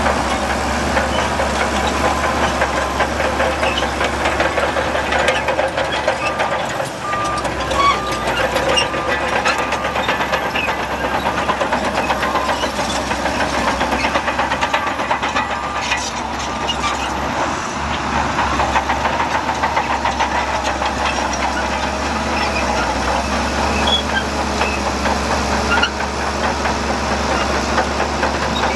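Heavy diesel earthmoving machinery running steadily, with a continuous engine clatter at a fairly even level.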